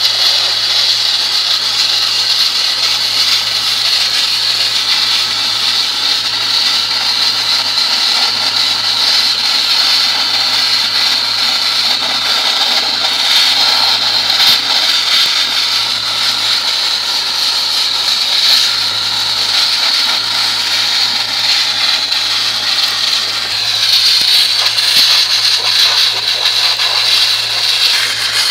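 Wet-blasting nozzle spraying water mixed with sand at about 90 psi onto the steel body panels of a Jeep CJ6 to strip the paint: a loud, steady hiss that gets a little louder near the end. A steady low hum runs underneath.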